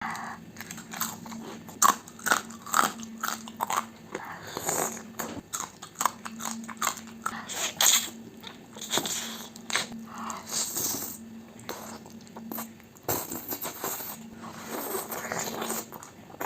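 Close-miked eating: crisp bites and crunching chewing of fried breakfast food such as potato balls and bacon, in an irregular run of sharp crunches.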